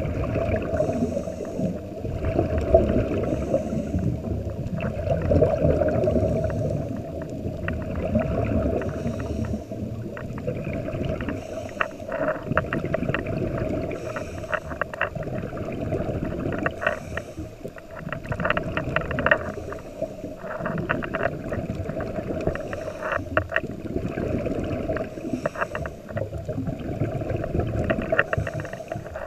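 Underwater sound through a camera's waterproof housing: a scuba diver's regulator releasing exhaust bubbles in repeated gurgling bursts over a continuous muffled rumble, with crackling clicks.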